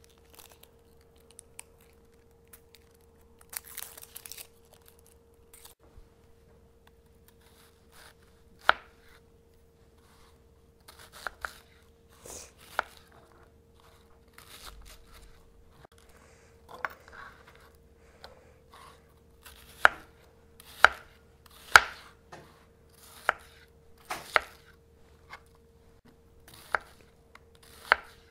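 A red onion is peeled by hand, its papery skin tearing, and is then cut with a kitchen knife on a plastic cutting board. The knife strikes the board a few times at first, then regularly about once a second in the second half.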